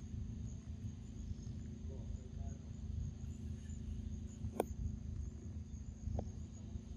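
Steady high-pitched trill of crickets or other insects over a low rumble, with a sharp click about two-thirds of the way through and a softer one near the end.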